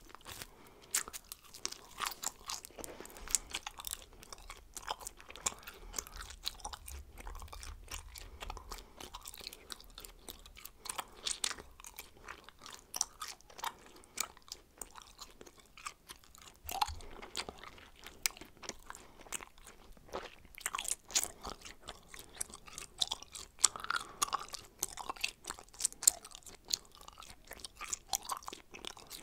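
A person chewing bubblegum: a continuous, irregular run of mouth smacks and clicks.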